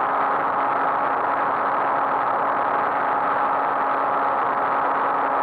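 Ultralight aircraft's engine and propeller running steadily in flight, heard on board as a constant drone with a held low hum, mixed with rushing air.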